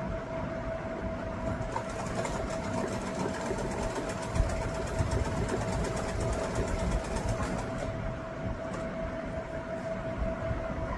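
A sewing machine stitching cloth in a fast, even run of clicks, which stops about eight seconds in, over a steady hum.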